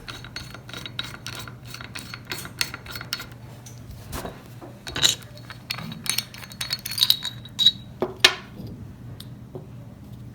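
Metal-on-metal clicks and clinks as the ratchet ring of a Sturmey-Archer X-RDC hub is unscrewed with a ratchet ring tool and lifted off: a quick run of small clicks, then scattered ringing clinks with the loudest near the end.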